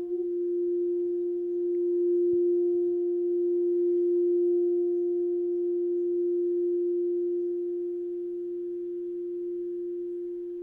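Singing bowl held on one steady, pure tone that swells about two seconds in, then slowly fades.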